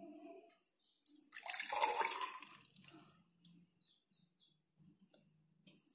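Thick, frothy lassi poured from a steel bowl into a glass tumbler. The pour splashes loudest between about one and a half and two and a half seconds in, then goes faint.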